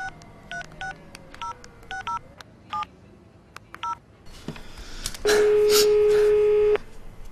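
Mobile phone keypad sounding DTMF tones as a number is dialled: about nine quick two-tone beeps. About five seconds in, one long, steady ringing tone sounds over a faint line hiss: the ringback tone of the called phone ringing.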